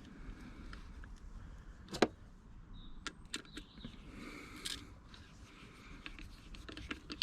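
Light clicks and scrapes of small hand tools and metal parts being handled, with one sharp click about two seconds in and a brief hiss of scraping just past the middle.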